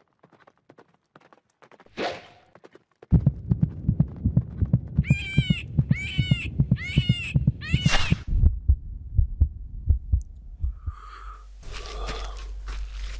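Film sound effects: a single whoosh, then a fast, low thudding pulse, over which four short high squeals from an animal sound in quick succession around halfway. Near the end the thudding gives way to a steady low rumble.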